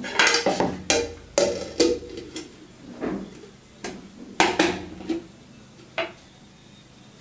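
Steel kitchenware clattering: a run of sharp metal knocks and scrapes with brief ringing as the steamed pudding's steel bowl is handled, busiest in the first two seconds and ending about six seconds in.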